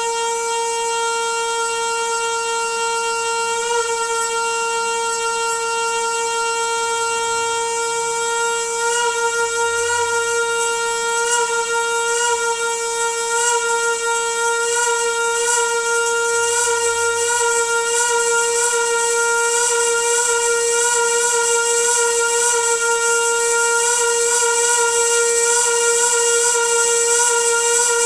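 Noisy water pipe droning on one steady pitch with overtones, over a hiss that grows stronger from about nine seconds in.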